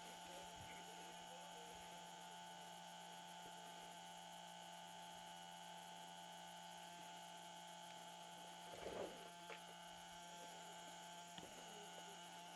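Near silence with a steady faint electrical hum, and a short rustle about nine seconds in.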